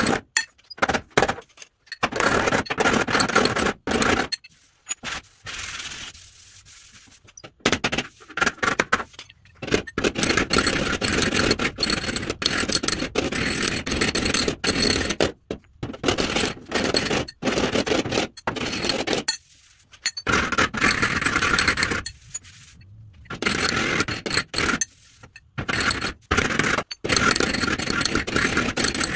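A flat hand tool scraping across the bare sheet steel of a 1936 Chevy truck fender in repeated strokes of one to two seconds, with short pauses between them.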